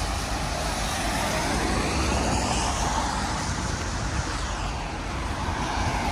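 Road traffic going by on a wet road: a steady hiss of tyres with engine rumble from passing cars.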